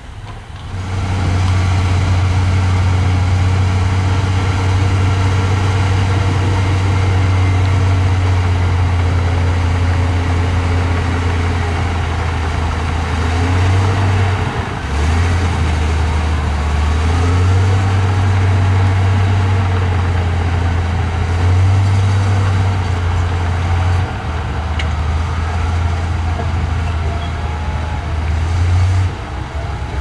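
Heavy earthmoving machine's diesel engine running, a deep steady drone whose pitch shifts a few times.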